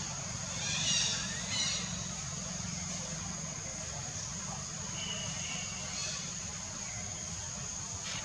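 Outdoor treetop ambience: a steady high-pitched whine and a low rumble, broken by a few short high animal calls about a second in, again shortly after, and more faintly around five seconds in.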